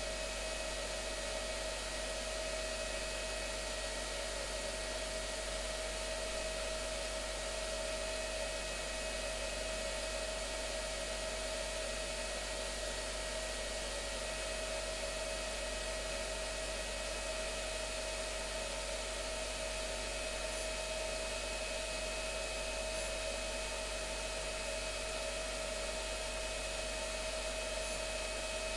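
Whirlpool FSCR 80415 front-loading washing machine running at a steady speed: a constant motor whine over an even hiss.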